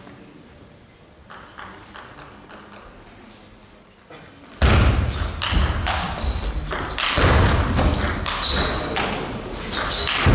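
Table tennis rally in a large hall: for about four seconds only a few faint ball ticks, then a fast exchange of celluloid ball strikes and table bounces, about three a second, with sneakers squeaking on the court floor. Loud crowd noise comes in with the rally and rises toward the end of the point.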